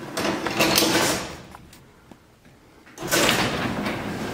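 Garage door opener running with the sectional door rolling on its tracks. It stops about a second and a half in and starts up again about a second and a half later.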